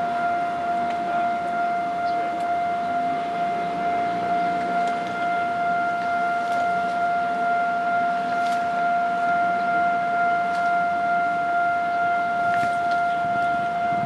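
Railway level-crossing warning alarm sounding one steady, unbroken tone as a train approaches the crossing, with a low rumble underneath.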